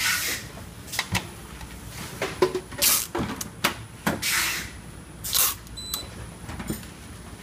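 Handling noise from plastic device housings and bubble-wrap bags on a workbench: several short rustling swishes and light knocks. Just before six seconds in there is a short high beep from a handheld barcode scanner reading a serial-number label.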